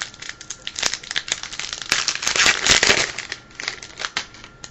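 Trading card pack wrapper being torn open and crinkled by hand, a dense run of crackling that is loudest about two to three seconds in.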